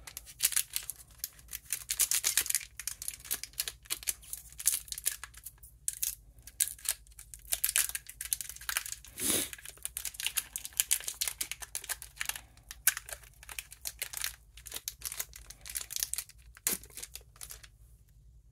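A One Piece card game booster pack's wrapper being torn open and crumpled in the hands, a dense run of crackles and crinkles that dies away near the end.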